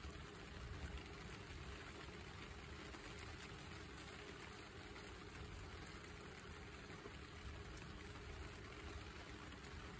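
Guinea pig chewing fresh grass blades held in a hand: faint, rapid, crisp crunching over a steady low rumble.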